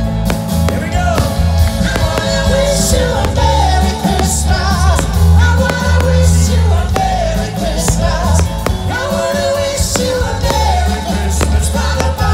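A song with a singing voice over a heavy, steady bass beat, played loud.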